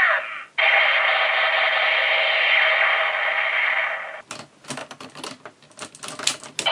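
Gaburevolver toy's electronic sound effect playing through its small speaker, steady for about three and a half seconds, then cutting off. It is followed by a run of irregular plastic clicks and clatter as the toy is worked.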